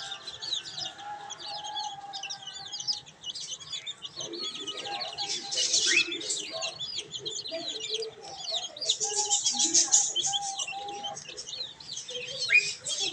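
Young chicks peeping and cheeping in a continuous, fast high chatter. Lower, drawn-out calls from a hen come in now and then.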